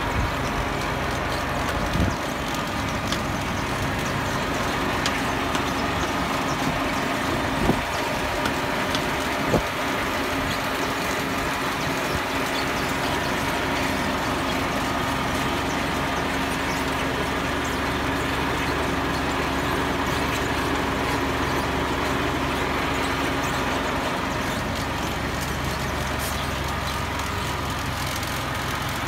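Farm tractor engine idling steadily, with a few sharp knocks about two, eight and ten seconds in.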